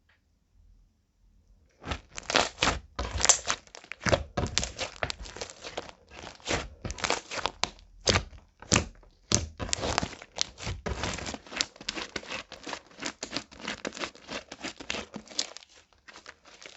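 Slime being squished and kneaded by hand: a dense, irregular run of sticky clicks and crackles that starts about two seconds in.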